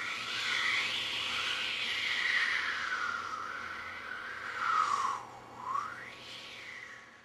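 Howling blizzard wind, a whistling rush that slides up and down in pitch, dipping sharply and rising again near the end before it fades out.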